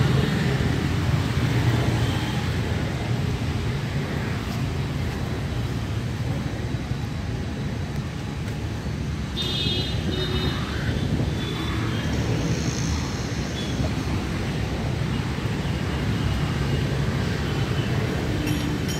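Road traffic on a busy street: scooters, motorcycles and cars passing close by, a steady rumble of engines and tyres, with a short high tone about halfway through.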